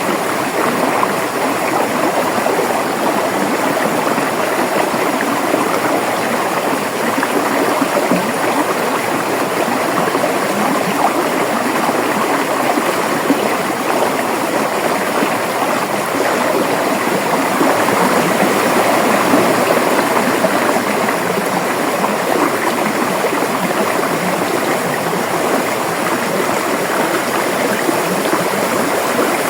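River water flowing over rocks: a steady, continuous rushing and gurgling.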